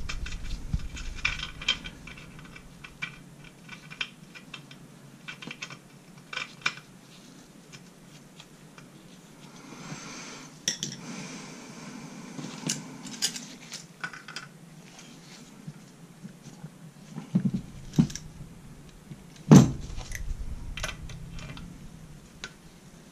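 Scattered light metallic clinks and clicks of steel hand tools being picked up and handled against engine parts: an adjustable wrench, pliers and a gear puller. One sharper, louder knock comes about three-quarters of the way through.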